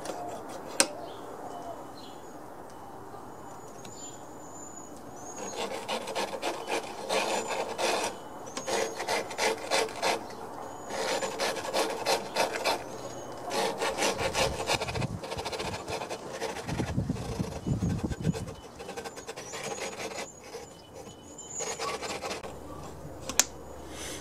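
Engine valve being hand-lapped into its seat in a Briggs & Stratton cylinder block with grinding compound: a lapping stick twirled back and forth gives repeated gritty grinding strokes in runs of a second or two, starting about five seconds in. A sharp click sounds about a second in.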